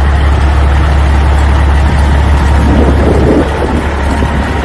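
Loud, steady heavy truck engine sound, a deep rumble with a wide hiss over it, easing slightly about three and a half seconds in.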